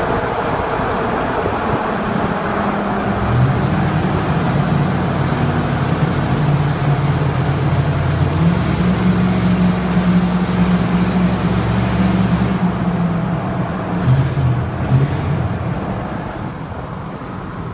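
Straight-piped six-cylinder exhaust of a Chevrolet 1500 pickup, heard through open windows and echoing off tunnel walls as the truck drives under load. The engine note steps up in pitch about eight seconds in. A couple of sharp backfire pops come near the end, then the sound gets quieter.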